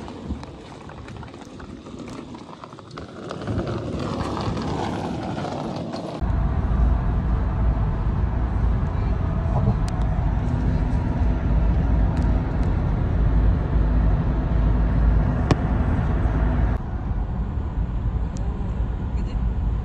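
Road noise heard from inside a moving car on a highway: a steady low rumble of tyres and engine with a hiss above it, starting about six seconds in after a quieter stretch.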